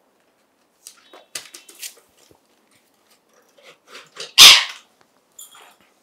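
Green parakeet giving a few short, faint calls, then one loud, harsh squawk about four and a half seconds in.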